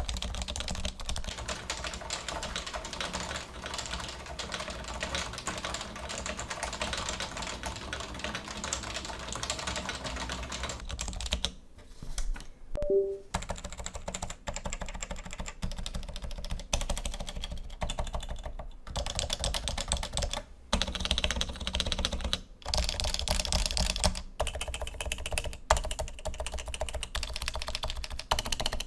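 Topre switches on a custom keyboard with a polycarbonate case and stainless steel plate being typed on fast, a steady stream of keystrokes. About halfway through the typing breaks into shorter runs with brief pauses between them.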